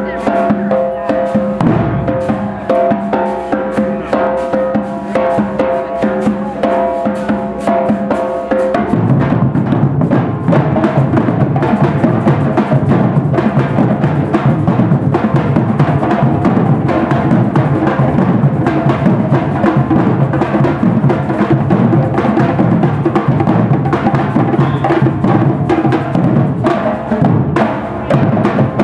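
Brazilian-style bloco percussion band drumming together, with big metal bass drums and hand drums. A held tone sounds over the drums until about nine seconds in, then the drumming gets louder and fuller.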